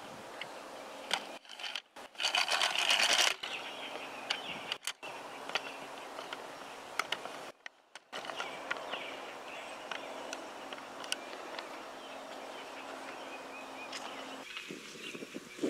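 Many bees foraging in a flowering holly tree, a steady low buzzing hum. A louder, harsher stretch of noise comes about two seconds in and lasts about a second, and the sound drops out briefly three times.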